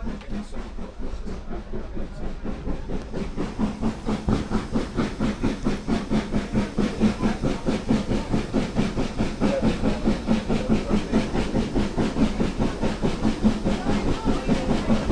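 Steam locomotive exhaust chuffing in a fast, even beat of about four chuffs a second, getting louder toward the end as the train pulls away, heard from an open carriage window with rail noise underneath.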